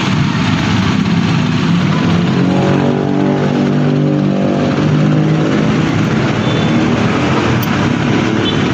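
A motor vehicle running: a loud, steady rumble and hiss, with an engine's humming tone swelling from about two to six seconds in.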